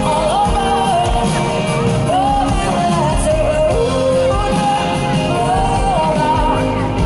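Loud live pop-rock band music, with a singer's voice holding long notes that slide between pitches over the band.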